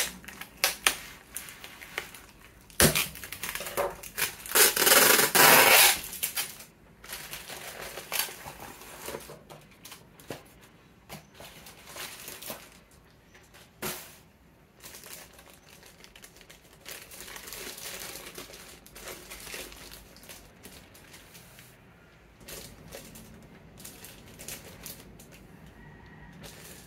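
Plastic packaging being opened by hand: an inflatable air-column cushion wrap is cut with a knife and pulled apart, crinkling, rustling and tearing, with a few sharp snaps and the loudest stretch about five seconds in. After that, lighter crinkling of the clear plastic wrap around the box.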